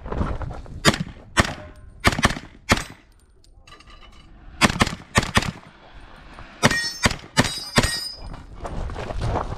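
Semi-automatic pistol fired in quick strings at a practical shooting stage: about a dozen sharp shots, several in fast pairs, with a pause of about a second and a half in the middle as the shooter moves to the next position.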